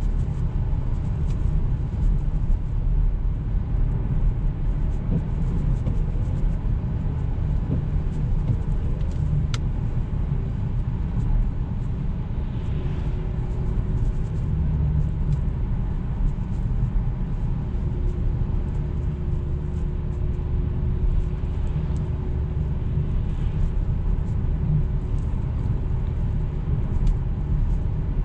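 Steady low rumble of road and engine noise inside the cabin of a 2009 Jaguar XF 2.7 V6 diesel being driven.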